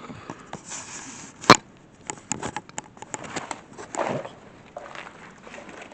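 Scattered clicks, scuffs and knocks of someone moving about on foot, with one sharp, loud knock about a second and a half in.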